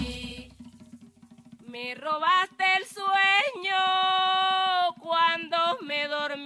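Background music: a song with a singing voice holding long notes, coming in after a quiet first second and a half.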